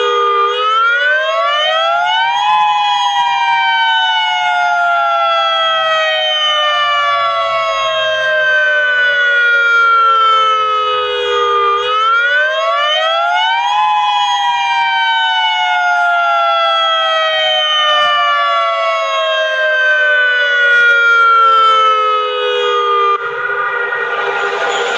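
Federal Signal Modulator outdoor warning siren sounding: a two-toned wail that rises in pitch for about two seconds, then slides slowly down for about nine, twice over. About two seconds before the end it breaks off into a loud rushing noise.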